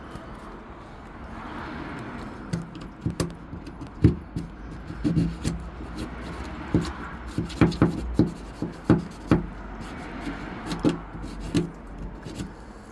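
A screwdriver scraping and knocking at a clogged drain hole in a Mercedes Sprinter van's steel body, clearing out packed dirt: an irregular run of sharp taps and scrapes, some with dull thumps.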